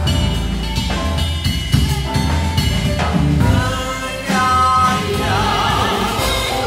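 Live band music: a voice singing over drum kit and double bass.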